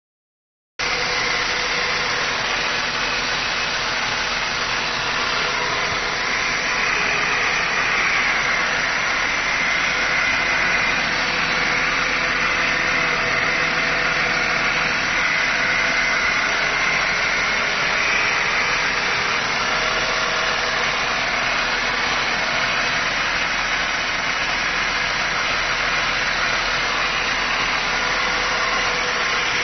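Mercedes-Benz SL350 (R230) V6 engine idling steadily with freshly replaced spark plugs.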